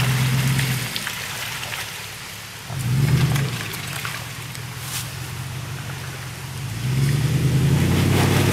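A 4x4 SUV's engine working in bursts of throttle as it climbs through deep mud: a short rev about three seconds in and a longer, louder push near the end. Under it, a steady hiss of the tyres churning wet mud and water.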